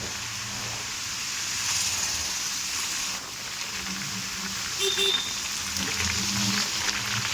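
Heavy rain falling in a steady hiss, with a low hum coming and going underneath and a brief short tone about five seconds in.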